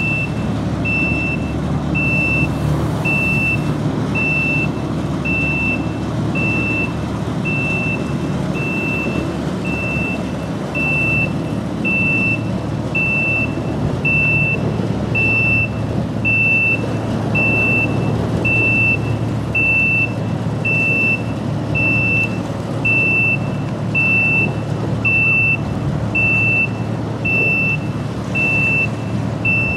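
A high electronic warning beep repeating evenly about once a second, over the steady low drone of the cargo ship's engine running close by.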